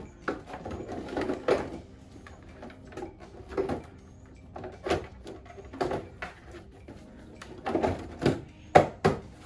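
Plastic tank shroud of a BMW G310GS being pressed and worked onto the fuel tank: irregular knocks, rubbing and clicks as the panel and its clips are seated, with two sharp clicks near the end, the loudest.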